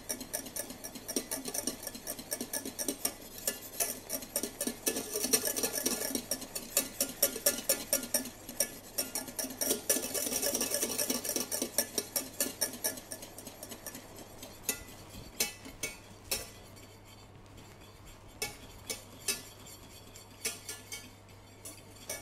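Wire whisk beating blueberry purée in a stainless steel saucepan, its wires rapidly clicking and scraping against the pan, as the purée is held at the boil to activate the pectin. The strokes thin out into more spaced clicks in the last third.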